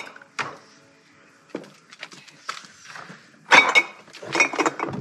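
Glass jars and bottles clinking against each other in a crate: a few scattered clinks, then a loud rattle of glass about three and a half seconds in as the crate is lifted.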